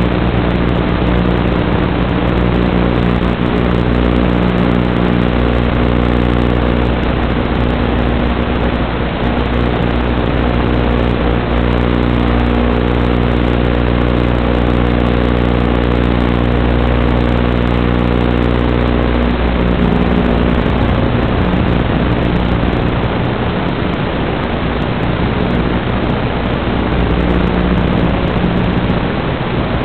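Steady hiss from the empty audio channel of an analog FPV video receiver, with a steady multi-tone hum that stops about two-thirds of the way through.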